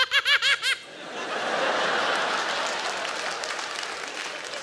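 A quick, high-pitched burst of laughter, about six short 'ha's in under a second, then a studio audience laughing steadily.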